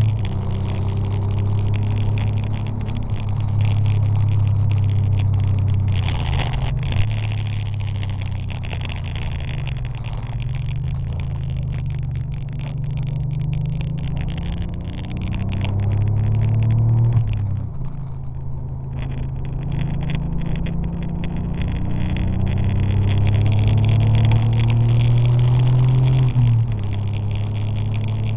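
Porsche 911 (964) air-cooled flat-six driven hard, its note climbing under acceleration and falling away several times, with sharp drops about 7, 18 and 27 seconds in, over a steady hiss of wet tyres.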